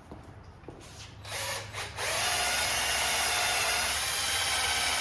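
Power drill blipped briefly a few times, then run steadily at speed from about two seconds in, cleaning brake dust and rust off a wheel hub.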